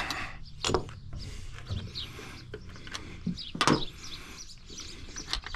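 Rack parts being handled and taken back out of a pickup's roof: a few scattered knocks and clicks, the loudest about three and a half seconds in. Faint bird chirps sound behind them.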